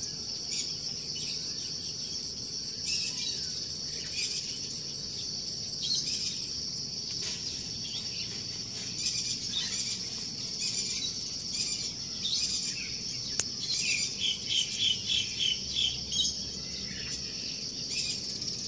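Steady high-pitched chorus of insects shrilling, with scattered chirps and a rapid run of chirps about three-quarters of the way through.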